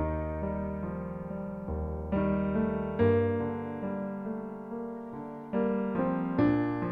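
Piano music: slow chords and single notes struck every second or so, each fading away before the next.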